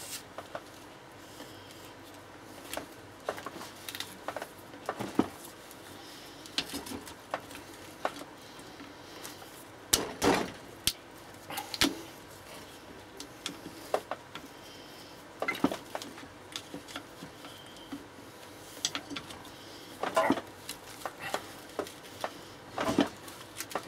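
Irregular clicks, scrapes and knocks of a screwdriver prising at the sawn-open rubber housing of a lightning arrester clamped in a vice, with occasional sharper clinks of the tool, the loudest about ten seconds in.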